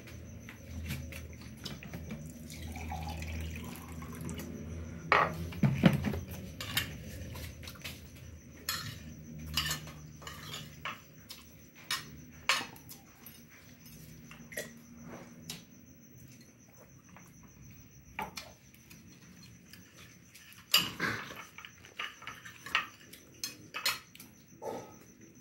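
Scattered clinks and knocks of a metal spoon against a glass plate during a meal, with dishes being washed and water running at a sink in the background. The loudest knocks come about five seconds in and again near the end.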